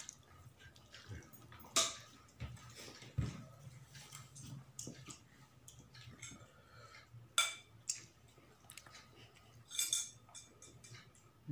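Ceramic tableware clinking and knocking on a table: a bowl and plate handled during a meal, with a few sharp clinks about two seconds in, at about seven and a half seconds and around ten seconds, and smaller knocks between.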